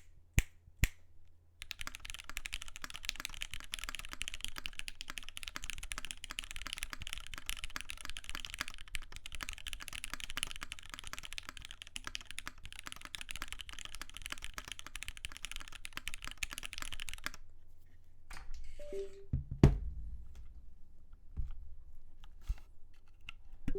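Continuous fast typing on a GS60 custom 60% mechanical keyboard, O-ring mounted with GMK keycaps, a dense stream of key clicks and clacks. The typing stops about three quarters of the way through and is followed by a few scattered clicks and one loud thump.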